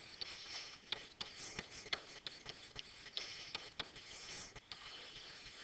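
Faint, irregular ticks and light scratching of a stylus writing by hand on a pen-input surface, several taps a second.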